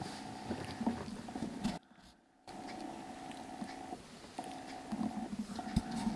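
Small black kitten purring steadily in short runs that pause about once a second, with small scratchy clicks as it moves about. The sound cuts out briefly about two seconds in.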